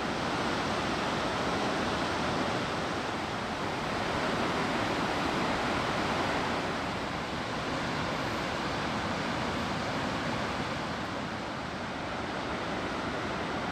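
Water rushing over the Trappstegsforsen, a broad stepped waterfall cascading over many low rock ledges: a steady, even rush.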